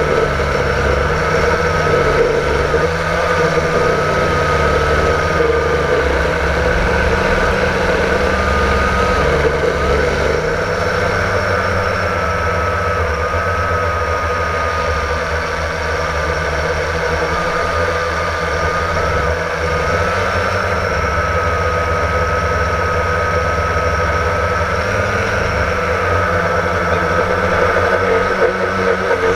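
Blade 350 QX quadcopter's brushless motors and propellers whining steadily as heard from the GoPro mounted on it, the pitch wavering up and down with the throttle, over a low rumble.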